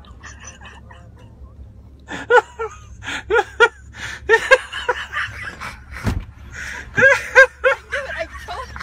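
Several rounds of high-pitched laughter in short repeated pulses, starting about two seconds in, with a single thump about six seconds in.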